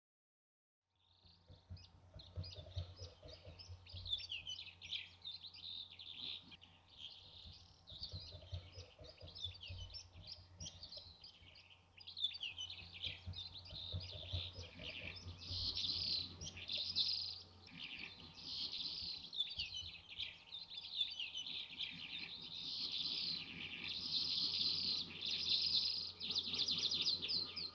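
Lark song: a long, unbroken run of rapid, high warbling notes, starting about a second in and growing louder in the second half, over a steady low hum.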